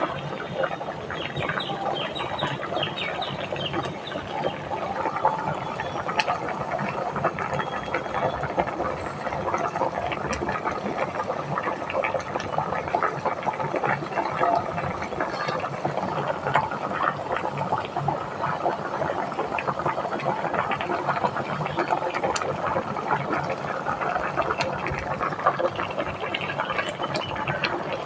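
Steady watery bubbling and splashing, with many small pops.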